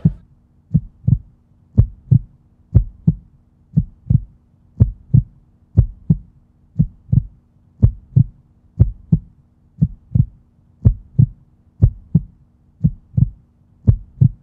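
Slow, steady heartbeat, double thumps (lub-dub) about once a second, with a faint low hum underneath.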